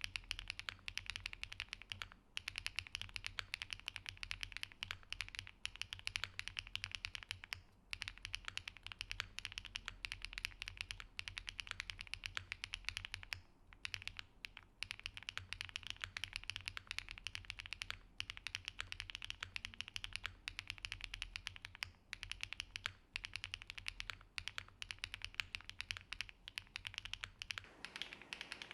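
Fast, continuous typing on a Qwertykeys QK75N mechanical keyboard with HMX Xinhai linear switches, an aluminium plate, full foam, gasket mount and GMK keycaps: a dense stream of keystroke clacks broken by a few brief pauses. Near the end the sound turns fuller as the recording moves to the camera microphone.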